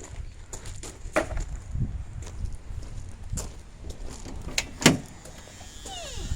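Car door and handling noises before the engine is started: a series of clicks and knocks, the loudest a single thump about five seconds in, and a short falling squeak near the end.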